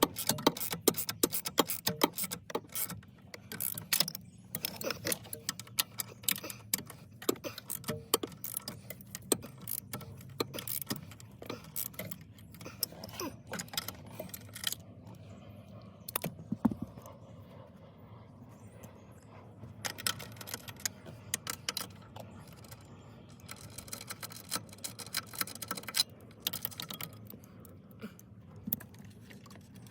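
Rapid clicks, knocks and rattles of steering wheel and column parts being worked by hand to seat the steering wheel back on. The clatter thins out from about 15 to 20 seconds in, comes back, and grows sparse near the end, over a low steady hum.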